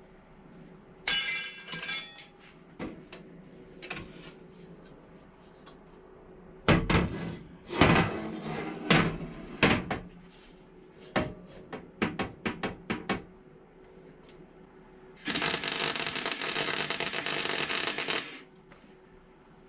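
Small metal parts and tools handled on a workbench: a ringing metallic clink about a second in, a run of sharp clicks and knocks in the middle, then a steady rushing noise for about three seconds near the end.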